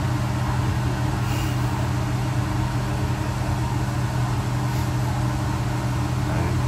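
Pet drying cabinet's blower running: a steady low hum with an even rush of air, drying a wet puppy's fur.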